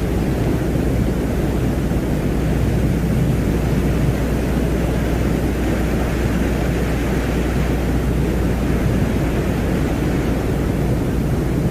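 Steady, unchanging low noise, like a deep rumble with a fainter hiss above it and no distinct events: an ambient space soundscape presented as the sound of the planet Venus.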